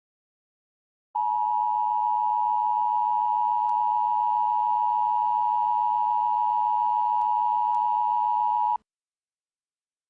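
Emergency alert attention tone: one steady, high-pitched electronic tone that starts about a second in, holds for about seven and a half seconds and cuts off abruptly.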